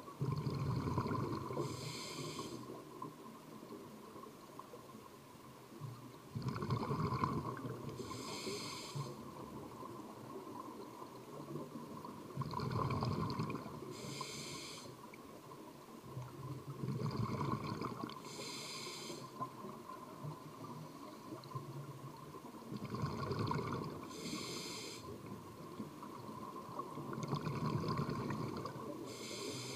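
Scuba diver breathing through a regulator underwater, about every five to six seconds: the exhaled air bubbles out with a low rumble, then the regulator gives a short hiss as the diver breathes in.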